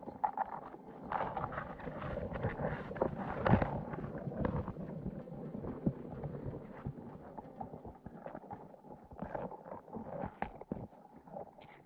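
Signal crayfish clambering over a mesh trap and its fish bait, recorded underwater: an irregular run of soft clicks, taps and scrapes, loudest about three and a half seconds in.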